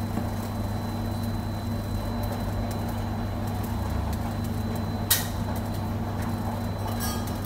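Steady low machine hum over a background hiss, with one sharp click about five seconds in and a few small clicks near the end.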